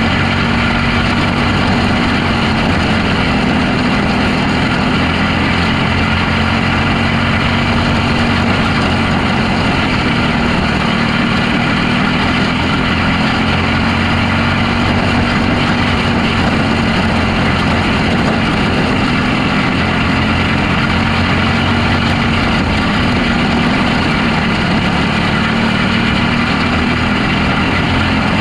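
Micro sprint car's engine heard onboard at racing speed, running hard and steady with only slight rises and dips in pitch, mixed with wind and tyre noise from the dirt track.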